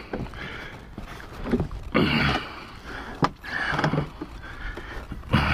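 Knocks and scuffing as the cowling of an Evinrude E-TEC 300 outboard is worked loose and lifted off by hand, with a few sharp knocks among the handling noise.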